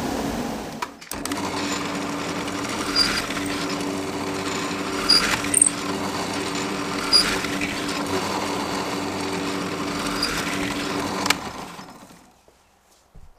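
Power drill running steadily as it bores holes through a plywood strip, with a few sharp clicks along the way; it winds down and stops near the end. In the first second a table saw is running, cut off about a second in.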